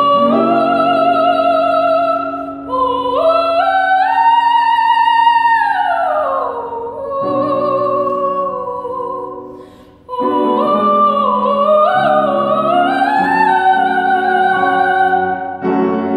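Female classical singer singing an operatic art song with grand piano accompaniment. She sings sustained notes with vibrato: one phrase climbs to a long held high note and falls away, there is a short breath about ten seconds in, and a second phrase rises again. The voice stops near the end, leaving the piano, as the song closes.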